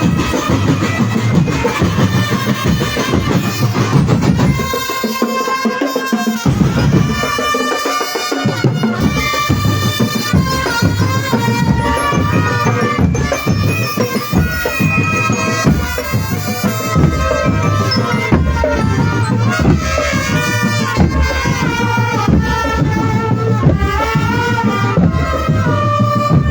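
Drum band playing: a melody carried over marching drums, with the low drums dropping out for a moment about five seconds in and again around seven to eight seconds.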